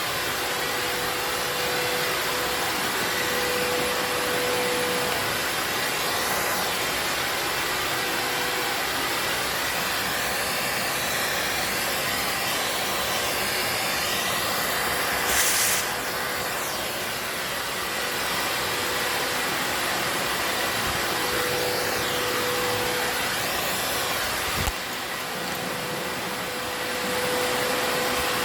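Vacuum cleaner running steadily with a constant motor whine, used to suck hornets from their nest. About halfway through there is a brief louder rush of air. A few seconds before the end comes a knock, after which the vacuum runs quieter for a couple of seconds.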